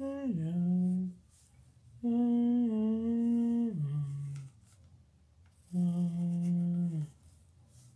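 A person humming a slow tune in three long held notes. The first two step down in pitch at their ends.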